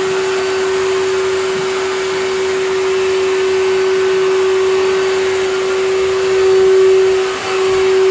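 A motor-driven machine running steadily, a constant high hum over a hiss, with a short dip in level about seven seconds in.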